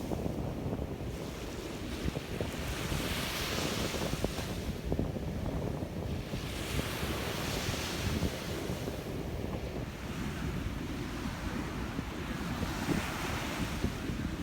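Ocean waves washing onto a beach, the surf hiss swelling three times as waves break and run up, over a constant low rumble of wind on the microphone.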